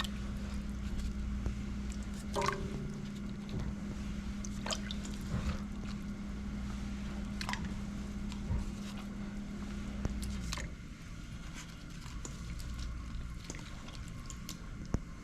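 Beef bones and water being handled in a cooking pot: scattered knocks and splashes of liquid. A steady low hum runs underneath and stops about ten seconds in.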